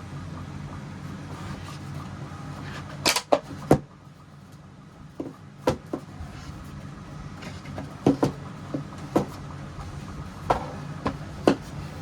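Irregular sharp clicks and knocks, as of small objects being handled or set down, over a steady low hum.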